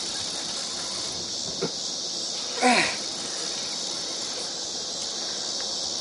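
Steady, high-pitched drone of insects. About three seconds in comes a loud, short squealing call that falls steeply in pitch, with a fainter one a little earlier.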